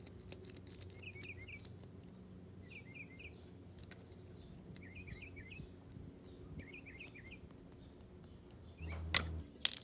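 Small birds chirping faintly in short, quick clusters of a few notes, repeating every second or two over a low steady background. A single thump comes near the end.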